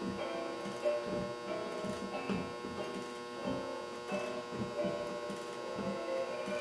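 Antique Ogee clock being wound by hand with a key: the click ratchet clicking in short runs while the movement ticks, over a steady hum.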